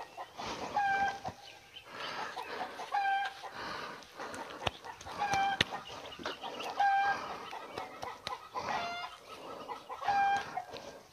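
A chicken clucking: short pitched calls repeated every second or two, with a longer call that rises in pitch near the end.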